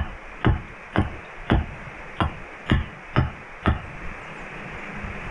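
Axe blows chopping into a wood blank, about two a second, eight strikes that stop about four seconds in, over a steady hiss of light rain.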